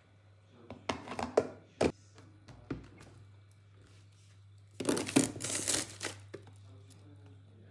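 A plastic food tub being handled and pushed into a refrigerator's freezer compartment: a few clicks and crinkles of plastic, then a longer scraping rustle about five seconds in, over a steady low hum.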